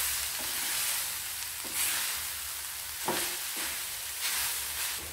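Ground soya chunks and onions sizzling as they fry in a stainless steel pan, with a spatula stirring and scraping across the pan in repeated strokes.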